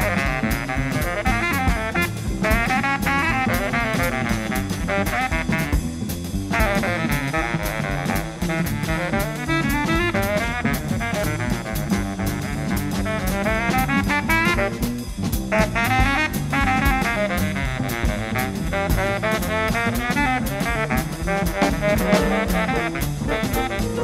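Fast small-group bebop jazz: a saxophone plays quick, winding lines over busy drums and cymbals and an upright bass. The horn line breaks off briefly about six and fifteen seconds in, and the rhythm section keeps going.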